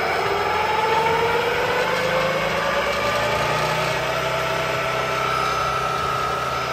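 Velvet Drive 5000 marine transmission spinning on a test dyno in left-hand rotation during a cooler-flow check. It makes a steady mechanical running noise, and a whine rises in pitch over the first few seconds and then holds steady.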